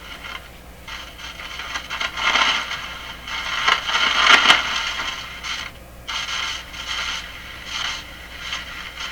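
Static and hiss from the Admiral Y846 five-tube radio's speaker, swelling and fading in uneven surges and loudest about four seconds in.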